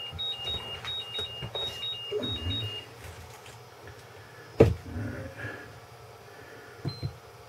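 Hobby battery charger beeping, a quick run of short beeps alternating between two pitches that stops about three seconds in. A single sharp knock about halfway through, with faint handling noise from work on the RC truck's chassis.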